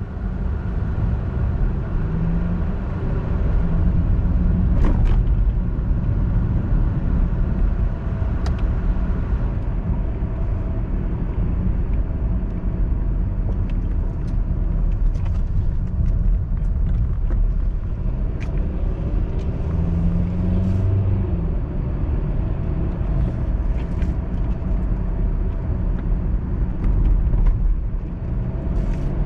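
A car driving, heard from inside the cabin: a steady low engine and road rumble with tyre hiss on wet pavement. The engine note rises as the car speeds up about two seconds in and again about twenty seconds in. A few faint clicks.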